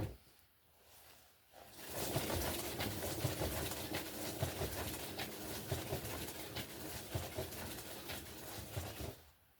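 Flat-faced hair dryer running, blowing air over wet fluid acrylic paint. It switches on about two seconds in and off shortly before the end.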